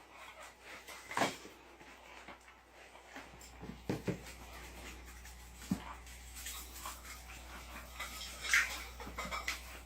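A dog eating greedily from a bowl: irregular snuffles, licks and sharp little clicks, a few seconds apart.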